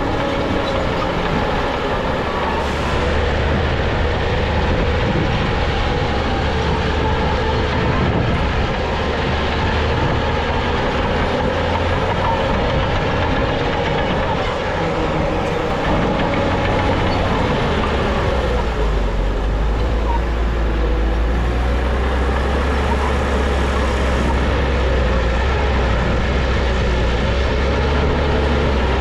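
Crawler bulldozer's diesel engine running steadily at work, its deep note dropping lower about two-thirds of the way through.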